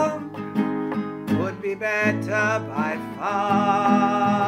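Acoustic guitar strummed in a steady rhythm, accompanying a slow sung hymn; in the middle a voice holds a wavering note without words.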